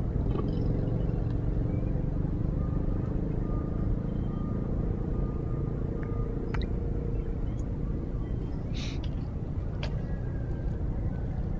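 Steady low outdoor rumble with a faint hum through the first half. A couple of small clicks and a brief hiss come about nine seconds in.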